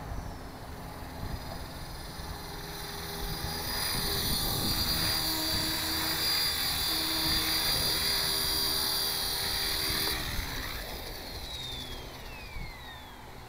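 Radio-controlled model helicopter's motor and rotor whining at a steady high pitch, growing louder as it comes down to land close by. Near the end the whine falls steadily in pitch as the rotor spools down on the ground.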